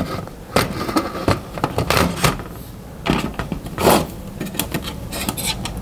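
Metal tweezers clicking and scraping against the edge of an LED panel's board and housing as it is pried at, a string of irregular small clicks and scrapes.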